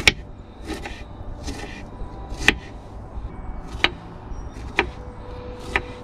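Knife slicing strawberries on a wooden cutting board, the blade knocking against the board five times at uneven intervals, with softer cutting sounds between.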